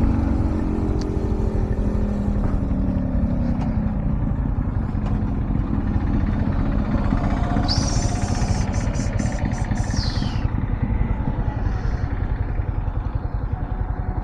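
Yamaha MT-15 single-cylinder motorcycle being ridden, its engine note falling in the first couple of seconds as it slows, under a steady wind rumble on the microphone. From about eight to ten and a half seconds in, a brief high-pitched squeal rises, pulses several times and falls away.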